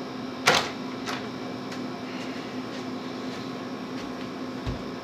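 Steady mechanical hum with a constant low drone, starting and stopping abruptly, with a sharp click about half a second in and a few faint ticks after it.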